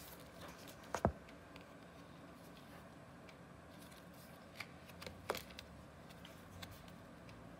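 Light handling of a thin card insert that holds a spare Apple Pencil tip: a few faint taps and rustles, the clearest about a second in and again just after five seconds.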